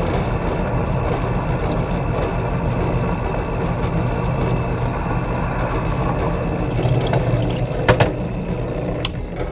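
Drill press motor running steadily while drilling aluminium stock, with a sharp knock about eight seconds in.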